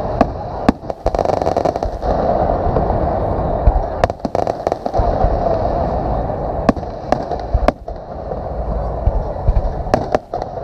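Fireworks display: shells bursting with sharp bangs at irregular intervals, a second or so apart, over a dense, steady din.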